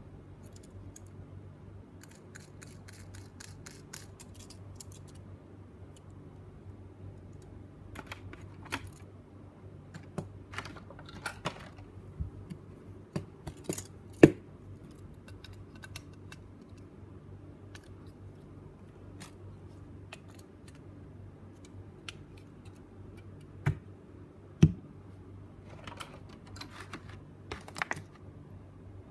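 Parts of a 1:200 scale model airliner and its clear plastic tray clicking, tapping and knocking as they are handled and fitted together, with a quick run of faint clicks early on and two louder knocks. A steady low hum sits underneath.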